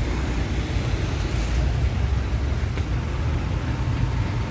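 Steady low rumble of motor vehicle noise.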